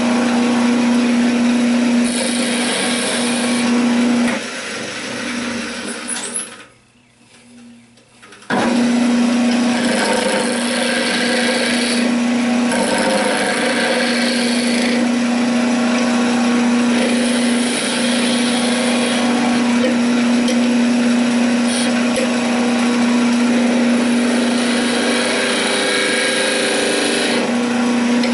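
Wood lathe spinning a pine spindle with a steady motor hum while a turning chisel cuts the wood, the cutting coming and going in bursts. The sound drops out briefly about six seconds in, then the hum and cutting resume.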